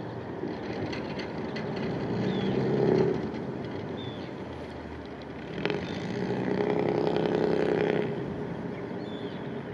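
An engine runs in two surges, the first building up and cutting off about three seconds in, the second running for a little over two seconds in the second half. Short high bird calls sound now and then over it.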